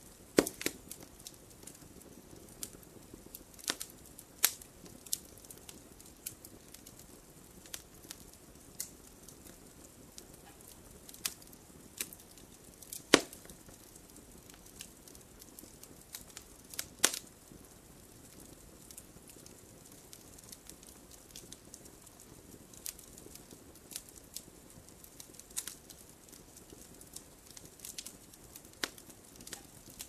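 Wood campfire crackling, with irregular sharp pops over a soft low hiss. A few pops stand out louder, the sharpest about halfway through.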